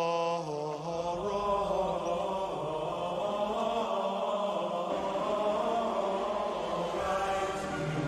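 Low voices chanting in long held notes that step to a new pitch every second or so, with more voices joining near the end.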